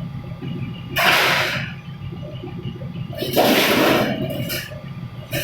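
Press machine running with a steady low hum, with two loud bursts of hissing, about a second in and again just past three seconds.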